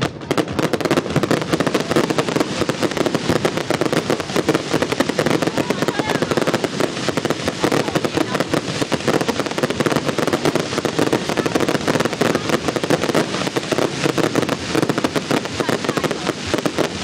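Fireworks going off at close range in a dense, unbroken barrage of rapid bangs and crackles.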